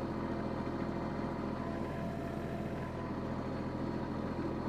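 Kubota tractor's diesel engine running steadily while it pulls a potato digger through wet soil.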